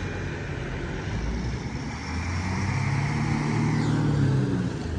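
A road vehicle's engine drone, growing louder about halfway through and peaking near the end as it comes close, over general traffic noise.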